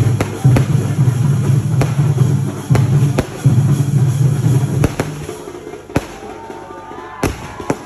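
Aerial fireworks bursting overhead with sharp bangs, over loud music with a heavy drum beat. The music drops out about five seconds in, leaving a few scattered bangs.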